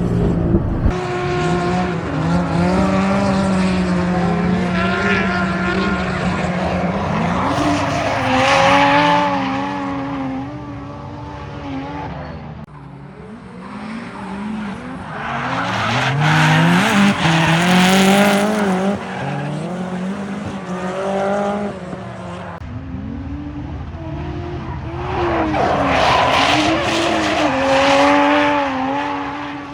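Toyota 1JZ inline-six engine of a car being driven hard on a race track, its revs climbing and dropping again and again through the gears, with three loud swells.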